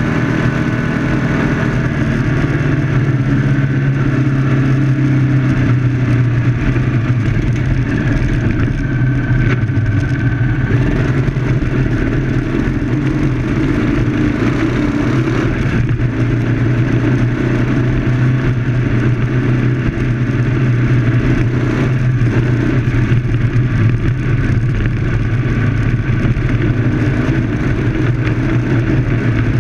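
Citroën 2CV autocross car's flat-twin engine running hard under racing load, heard from inside the cockpit. Its note holds steady, with small rises and falls as the throttle comes and goes.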